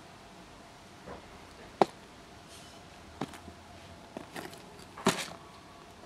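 Lidded plastic food container being handled, giving a few separate sharp clicks and knocks. The loudest comes about two seconds in and another cluster about five seconds in.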